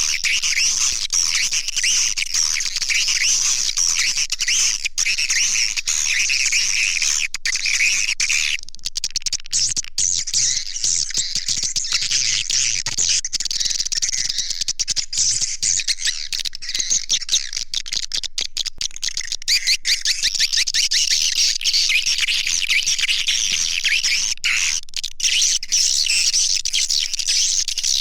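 Swiftlet call recording: a dense, unbroken chorus of high twittering chirps, the lure sound played to draw swiftlets into a nesting house. The chirping changes pattern briefly about eight seconds in.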